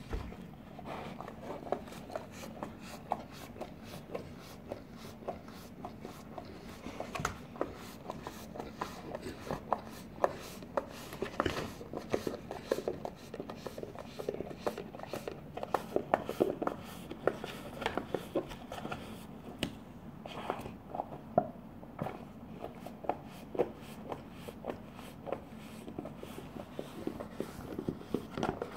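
Newfoundland dog licking and gnawing a frozen dog treat out of a small plastic pot: an irregular run of licks and sharp clicks and knocks of tongue and teeth against the plastic.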